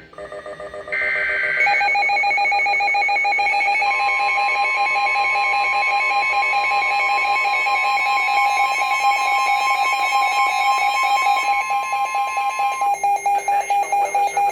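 Emergency Alert System warning on NOAA Weather Radio. About a second in comes a short screeching SAME data burst, then a weather alert radio's loud electronic alarm sounds with a fast pulse. The steady 1050 Hz NWS warning tone runs under it for about nine seconds, and near the end the alarm breaks into separate beeps, a few a second.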